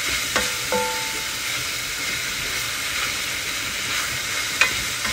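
Minced beef frying with onion, garlic and spices in a nonstick pan, sizzling steadily as it is stirred with a spatula. A few short clicks sound within the first second and once near the end.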